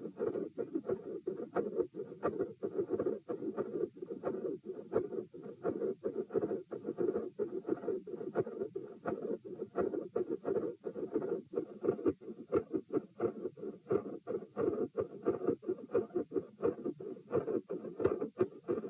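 Heart sounds picked up on the chest, overlaid with a dense run of irregular clicks and scratchy noise. The uploader reports a fixed split second heart sound with extra sounds and clicks as recurring in this recording.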